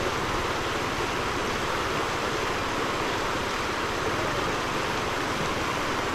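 Floodwater from the overflowing Paz River rushing across a road and around rocks in a steady, unbroken rush.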